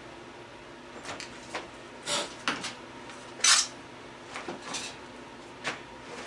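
Scattered metallic clanks and knocks from a gas stove's parts being handled during teardown, about eight short hits with the loudest about three and a half seconds in.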